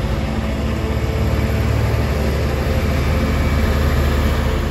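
Peterbilt dump truck's diesel engine running with a steady low rumble as the truck rolls slowly closer, growing a little louder.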